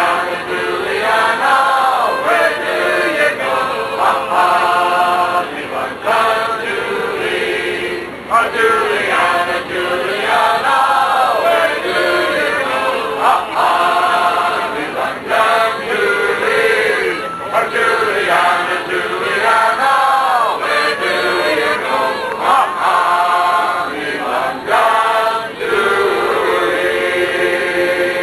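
A group of men singing together, a choral song that runs without a break.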